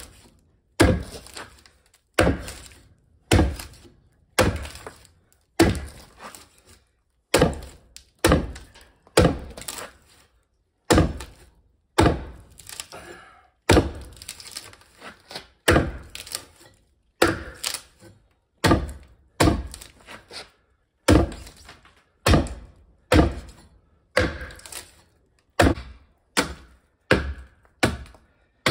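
Axe blows biting into the side of a log as it is hewn flat, splitting off chips: a steady run of sharp wooden thunks, about one a second.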